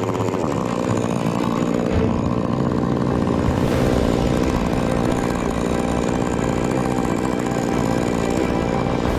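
Chainsaw engine running steadily at speed.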